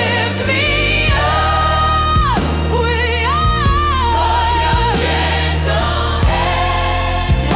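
Gospel worship song: sung vocals holding long notes with vibrato and melodic runs, over sustained low bass and a steady beat.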